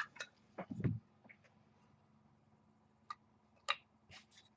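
Trading cards being handled on a table: a few scattered light clicks and taps, with a dull thump just under a second in and quiet gaps between.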